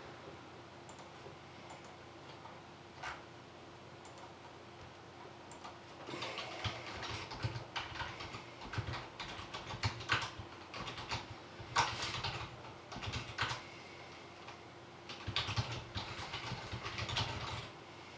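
Typing on a computer keyboard, a few lone key clicks at first, then two quick runs of keystrokes. The team names are being entered into a randomizer.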